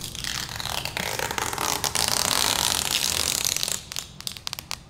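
Clear plastic wrapping crinkling as it is pulled off an ATM cabinet; it dies down after about three and a half seconds, leaving a few light ticks.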